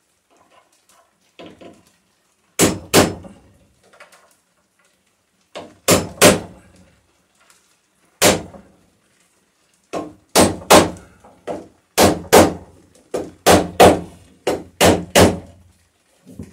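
Hammer blows driving ring-nail heads flush into a wooden hull plank. There are about twenty sharp strikes, mostly in quick groups of two or three, coming faster in the second half, each with a short ring.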